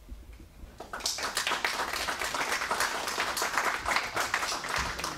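Audience applauding: many hands clapping, starting about a second in.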